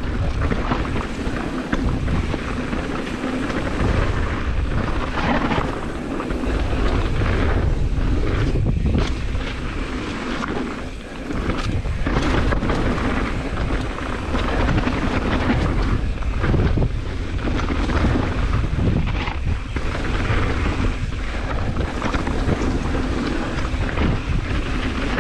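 Wind buffeting a GoPro HERO9's microphone on a fast mountain-bike descent, mixed with the tyres rolling over dirt and loose stones and the bike rattling over bumps. The rush dips briefly about eleven seconds in.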